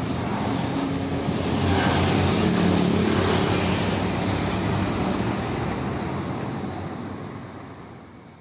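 A motor drone with a rushing noise that cuts in suddenly, swells and then fades away over the last few seconds, like a powered vehicle or aircraft passing.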